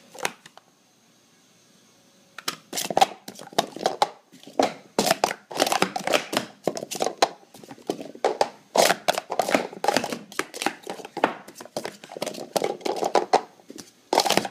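Plastic sport-stacking cups clattering in fast, uneven clacks as they are stacked up and down at speed through a timed cycle, starting about two seconds in after a short quiet.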